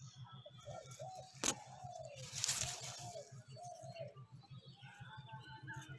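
Bird calls, short curved chirps, over a fast, even low pulsing. A sharp click comes about one and a half seconds in, and a short rushing noise follows around two and a half seconds in.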